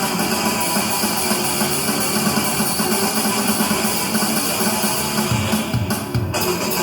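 Music with guitar and drums.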